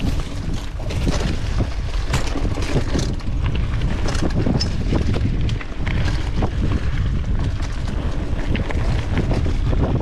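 Wind buffeting the microphone of a mountain bike rider on the move, with the bike's tyres and frame clattering over rough trail in many short knocks. It grows louder in the first second, then stays steady.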